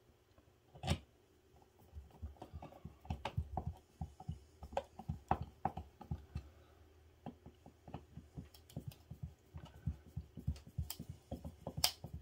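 Hand screwdriver turning the screws of a plastic cover plate on a GFCI outlet: a sharp click about a second in, then a long run of small irregular ticks and scrapes as the screws are driven, with another sharp click near the end.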